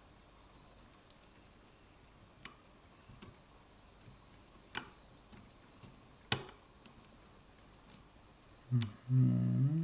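Small metallic clicks of a lock pick working the pin stack of an ASEC lock cylinder, single clicks a second or so apart. Near the end a short hum of a voice.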